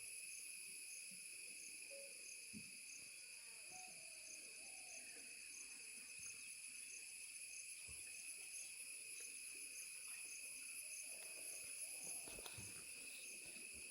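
Faint, steady chorus of insects shrilling on several high, even pitches, with one strand pulsing about twice a second. A few short, low calls and soft thumps stand out now and then.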